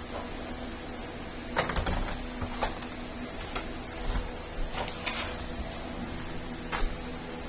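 Scattered plastic clicks and knocks from Nerf Rival foam-ball blasters being handled, about seven sharp strokes at uneven intervals, with a faint steady hum beneath.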